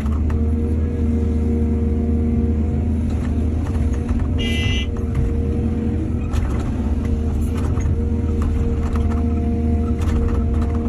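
Excavator diesel engine running steadily under load, with scattered knocks and clanks. A brief high-pitched squeal or beep sounds about four and a half seconds in.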